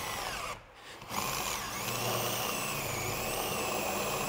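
Cordless drill boring a hole through a van's sheet-steel roof. The drill stops briefly about half a second in and starts again about a second in, then runs steadily with a whine that sags and recovers in pitch as the bit bites.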